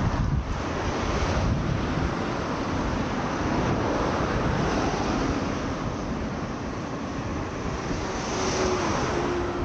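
Wind buffeting the microphone over a steady rushing noise. A faint steady hum comes in near the end.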